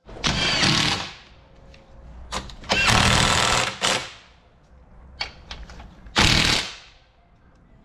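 A handheld power tool run in three short bursts of about a second each, with a few small clicks and knocks between them.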